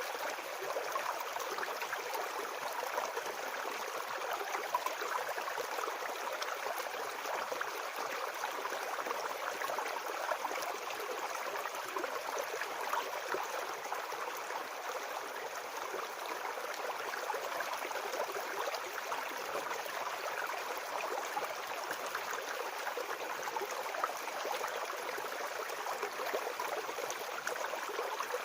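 Shallow brook babbling and gurgling over stones, a steady flow with no change.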